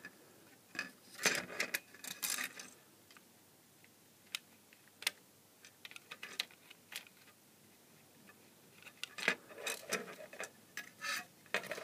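Scattered light clicks and taps of metal pliers tips against a small circuit board and its plastic housing, coming irregularly in ones and small clusters, as the board's capacitors are shorted out to discharge them.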